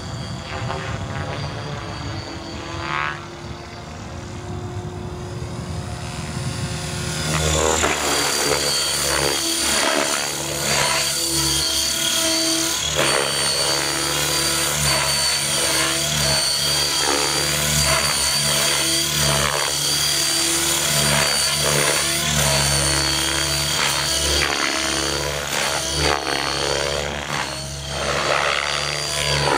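Outrage Fusion 50 electric RC helicopter flying 3D aerobatics: rotor blades beating and electric motor whining, with repeated surges as the blade pitch changes. It is fainter while the helicopter is high up and much louder from about seven seconds in, when it comes in low.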